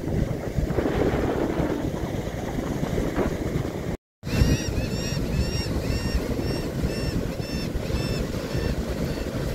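Ocean surf breaking and washing up the beach, with strong wind rumbling on the microphone. After a brief cut about four seconds in, a high chirp repeats about twice a second over the surf.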